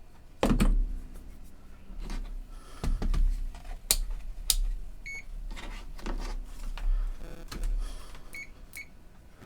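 Knocks, clicks and low bumps of handling a multimeter and its test leads on a workbench, with short electronic beeps from the multimeter: one about five seconds in and two quick ones near the end, as during a continuity check of the cable wires.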